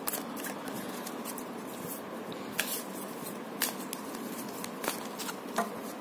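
A deck of tarot cards being handled and shuffled by hand: a few short, sharp card clicks and snaps, spaced about a second apart, over a steady hiss.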